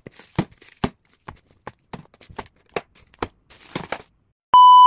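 Sharp clicks or taps, about two a second, then near the end a loud, steady electronic beep lasting under a second.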